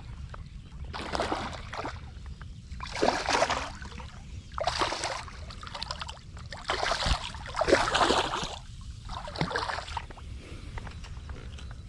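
Water sloshing and splashing at the shoreline in irregular surges every second or two, over a steady low rumble of wind on the microphone.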